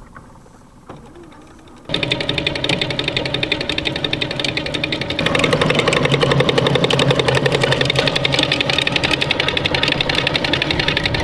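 A fast, even mechanical rattle, like a small motor, starts abruptly about two seconds in and gets louder about five seconds in.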